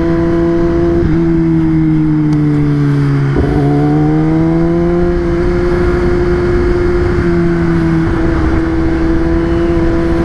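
Kawasaki ZX-10R's inline-four engine under way, with wind rush: its pitch sinks as the bike slows, jumps up sharply about three seconds in, then rises a little and holds steady.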